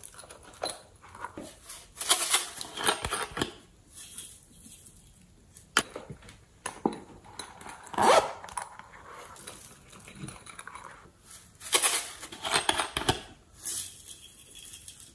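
Soft modelling clay being peeled and squeezed by hand out of plastic moulds, giving irregular bursts of sticky crackling and squishing with small plastic clicks. A squeeze bottle is handled near the end.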